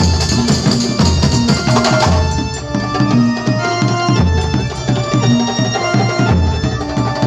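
Kuntulan ensemble playing: terbang frame drums beating a dense, driving rhythm with deep drum strokes, under a held melody line.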